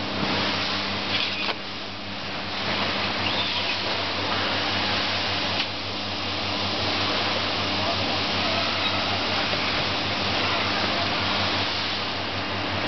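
Vacuum tube lifter running: a steady rush of air drawn through the lift tube by its 3 kW vacuum pump, over a constant hum. The level dips briefly about a second and a half in, and there is a short click near the middle.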